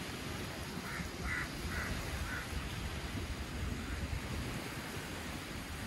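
Small sea waves washing onto a sandy shore, with wind, a steady hiss of surf. About a second in, a bird calls four times in quick succession.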